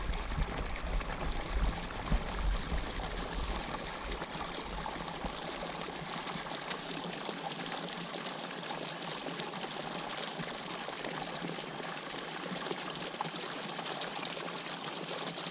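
Steady splashing and rushing of water pouring into a pond from an inflow after rain. A low rumble under it fades out in the first few seconds.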